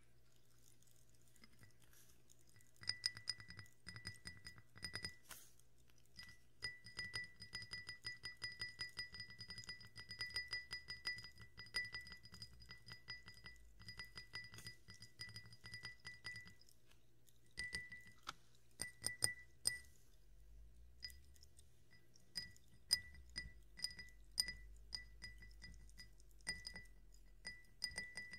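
Cut-glass tumblers being tapped, each tap ringing at the same clear pitch. A quick, even run of taps begins about three seconds in and stops about halfway through. Slower, scattered taps follow.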